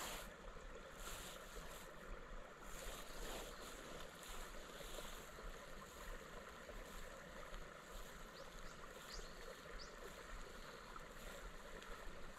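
Faint, steady outdoor hiss with the soft winding of a spinning reel, cranked slowly in a straight retrieve.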